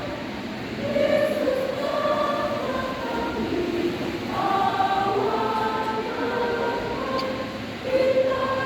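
Church choir singing, several voices holding notes together and moving from note to note.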